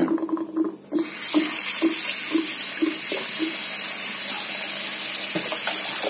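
Kitchen sink tap turned on, water running hard from the faucet onto a plate in the sink. Over the first few seconds the sink gives a run of short low gulps, about two a second, that die away: the sink burping.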